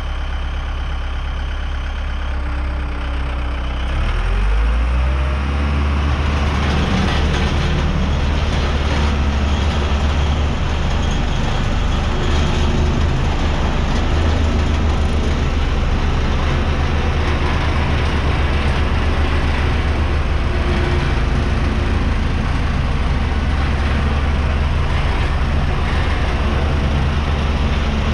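Diesel engine of a 2005 Ingersoll Rand SD-100D 84-inch single-drum roller running steadily with a heavy low rumble as the machine drives over dirt. About four seconds in, the engine pitch rises and it gets a little louder, then holds.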